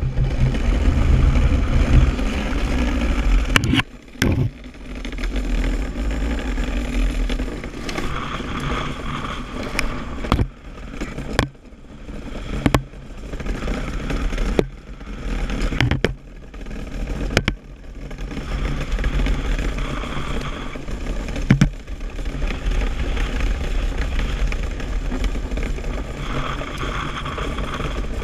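DN iceboat under sail: a steady low rumble and hiss from the steel runners on the ice and wind on the microphone, swelling and easing, with several sharp knocks through the middle.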